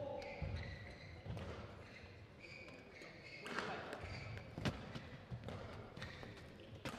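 Badminton shoes squeaking and feet thudding on the court mat as players move between rallies, with a few sharp knocks.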